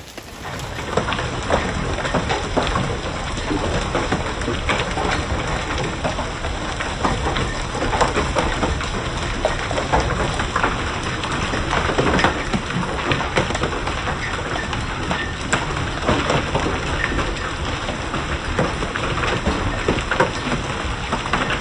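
Heavy hail pelting a wooden deck and its railing: a dense, steady clatter of many hailstone hits mixed with rain, with sharper individual impacts all through.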